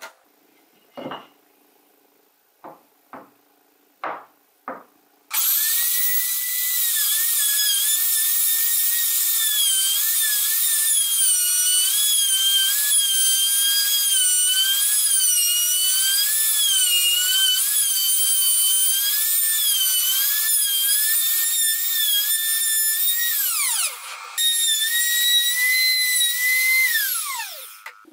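A few short scraping strokes of a bench chisel paring pine. Then a trim router runs with a high whine that dips and rises as the bit cuts the wood, winds down, starts again briefly, and winds down once more near the end.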